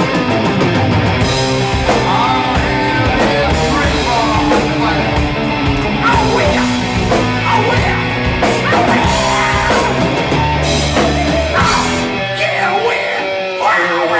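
Rock music with a singing voice, electric guitar, bass and drums; the bass and drums drop away briefly near the end.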